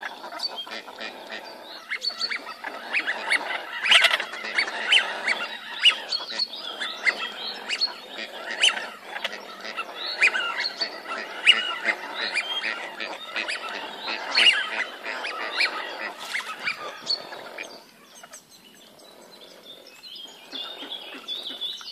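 A flock of ducks calling, many short overlapping calls at once, thinning out near the end.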